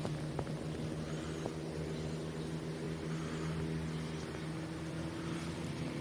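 Steady low engine hum, with a few faint clicks about half a second and a second and a half in.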